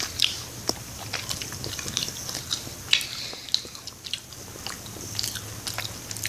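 Someone chewing a soft, chewy mango gummy candy: irregular small mouth clicks and smacks, with a faint steady hum underneath.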